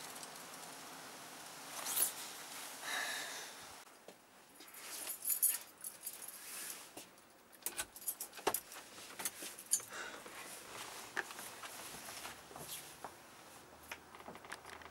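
A bunch of keys jangling, with many small metallic clicks as a front door is unlocked and opened.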